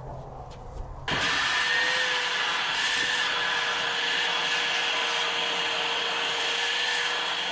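Shop vacuum switched on about a second in and running steadily, a constant whine over a loud rush of air.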